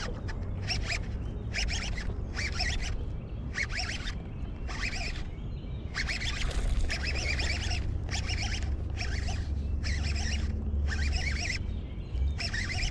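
Baitcasting reel cranked in short rhythmic bursts, about one and a half a second, as a topwater walking lure is worked back across the water, with a low wind rumble on the microphone.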